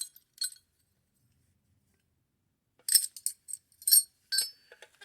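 Small loose metal hardware, nuts and bolts, clinking as it is rummaged through: two light clinks at the start, then after about two seconds of quiet a quick run of sharp, ringing metallic clinks and rattles.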